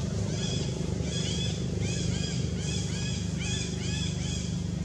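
Short, high, arched chirping calls repeating several times a second, some overlapping at different pitches, over a steady low hum.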